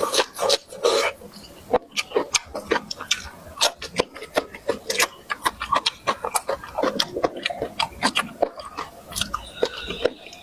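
A person chewing food with open-mouthed smacking, close to the microphone: a quick, irregular run of wet clicks and smacks.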